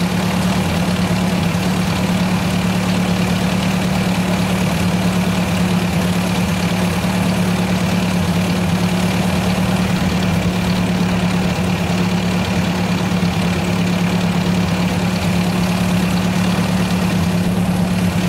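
1956 Ford tractor's engine idling steadily, an even low hum that holds unchanged throughout.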